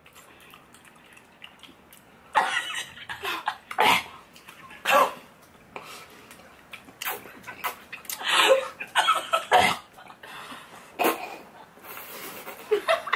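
Several women coughing, clearing their throats and making short strained vocal noises as they eat whole raw jalapeños, the sounds starting about two seconds in and coming in irregular bursts, with laughter near the end.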